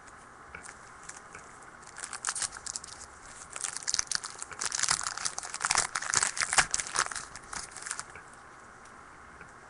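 Trading-card packaging crinkling and crackling as cards are handled, a dense run of crackly rustles from about two seconds in until about eight seconds in.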